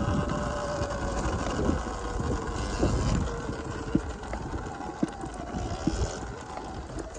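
Sur-Ron Ultra Bee electric dirt bike riding over a dirt trail: a thin motor whine that rises slightly, then sinks and fades about halfway through as the bike slows, over a low rumble of wind and tyres with scattered knocks from the rough ground.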